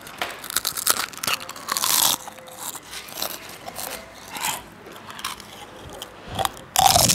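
Potato chips crunched and chewed right at a clip-on microphone held to the mouth: a run of irregular crisp crunches, loudest about two seconds in and again near the end.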